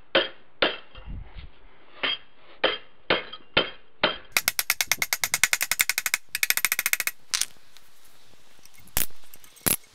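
Hammer blows on a small steel tab, bending it over the corner of square steel tubing clamped to the bench. Single sharp metal strikes come about twice a second, then a fast run of many quick strikes from sped-up footage, and two last blows near the end.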